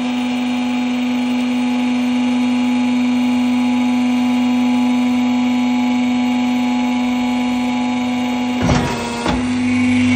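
Electric wool press running with a steady hum as its head lifts the finished wool bale up out of the box on a hook. There is a brief clatter near the end.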